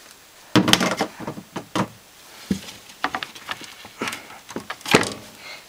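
A TV circuit board being handled and shifted on a hard surface, making a scatter of irregular knocks, taps and clicks. The loudest knock comes about five seconds in.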